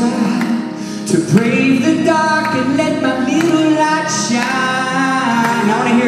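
Gospel worship song: voices singing sustained, bending notes over instrumental backing.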